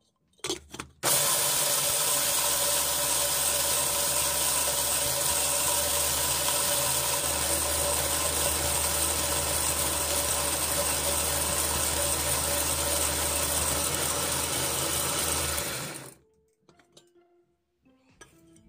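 A short clatter as the teapot lid goes on, then an angle grinder motor running at steady speed, spinning a blade inside a stainless steel teapot to grind dried corn kernels. It runs for about fifteen seconds and then stops.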